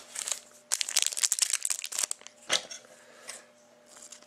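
Trading card pack wrappers crinkling and tearing as the packs are handled and ripped open: a dense run of quick crackles in the first half, then a few single rustles.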